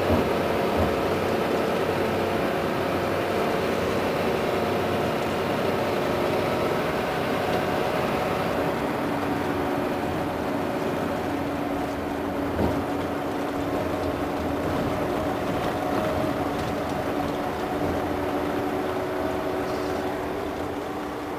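Volvo B12R coach's rear-mounted inline-six diesel engine running steadily, with one short knock about halfway through.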